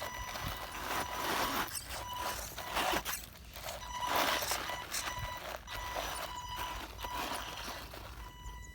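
Electric drive of an FY-03 RC off-road truck whining in on-off pulses as the throttle is worked, with tyres scrabbling and scraping over dirt and gravel in irregular bursts. The truck is labouring up a hill on wheels swapped in from another car, which makes the climb hard.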